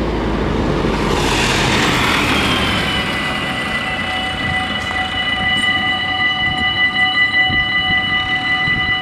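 A tractor towing an orchard sprayer passes close by with engine rumble and a falling whine. About two to three seconds in, the level-crossing warning bells start ringing, steady and rapid, and keep ringing as the barriers come down.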